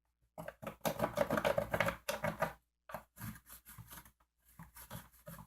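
Rapid scratching and tapping as the outline of an outlet box is marked on vinyl siding: a dense run for about two seconds, then shorter scattered bursts.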